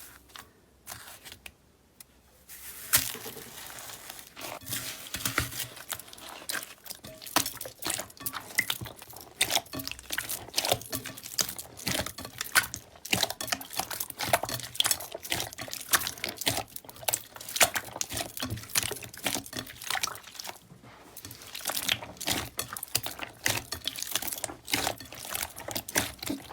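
Slime being squeezed and worked by hand, giving rapid wet crackles and pops. The pops are sparse at first and turn dense about three seconds in.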